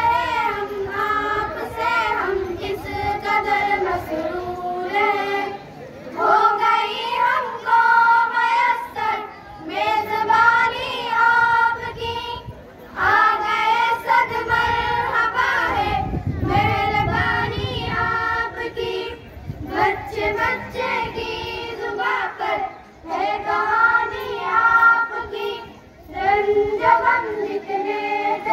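A group of children singing together in unison, in sung phrases broken by short pauses every few seconds.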